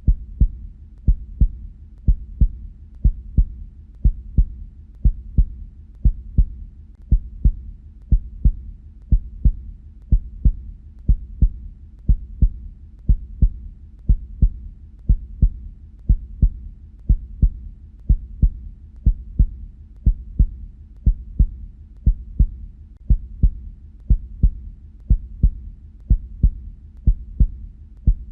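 Heartbeat: paired lub-dub thumps, about one beat a second, steady throughout. Each pair is the knock of the heart valves closing.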